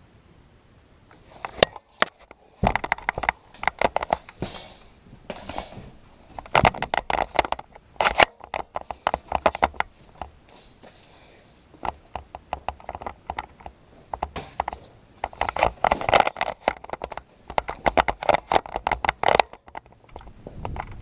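Hurried footsteps and scuffing with close rustle and clatter of handling, in irregular spells separated by short pauses.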